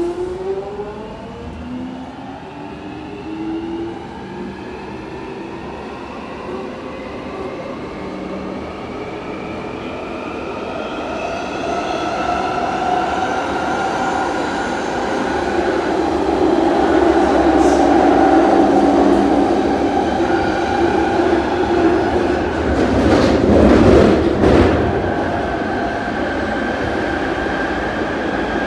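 London Underground 1996 Tube Stock train heard from inside the carriage, pulling away and accelerating. There is a thump at the very start, then the electric traction motors' whine rises steadily in pitch over the first dozen seconds. The running rumble then grows louder, with a burst of rattling clatter about 23 to 25 seconds in.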